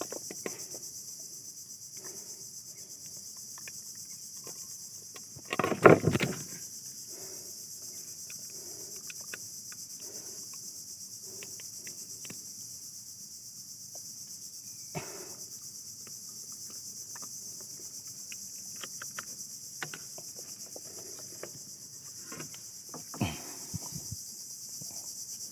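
Steady high-pitched chorus of insects chirping, with a brief loud clatter about six seconds in, a sharp knock near the end and scattered small clicks.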